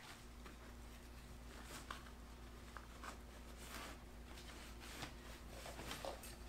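Faint, irregular scuffs and crunches, several a second at uneven spacing, over a low steady rumble that sets in just after the start.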